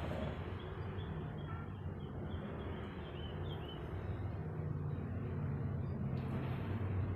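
Steady low electrical hum from the plugged-in step-down transformer, with faint quick chirps of a small bird repeating in the background.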